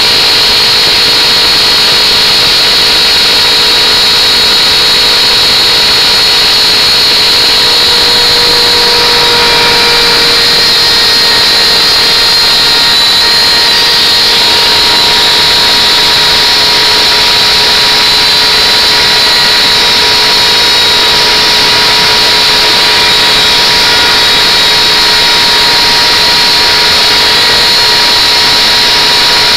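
Wood router running at speed, its V-bit cutting engraved lettering into a wooden board: a loud, steady whine over the noise of the cut.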